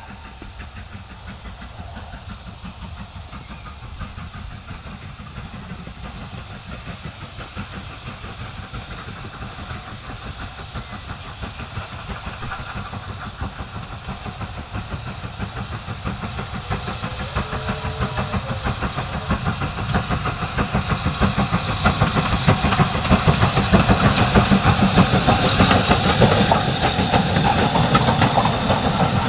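BR Standard Class 7 'Britannia' 4-6-2 steam locomotive 70013 running under steam with a train, its rapid exhaust beats growing steadily louder as it approaches and loudest as it passes close by in the last several seconds.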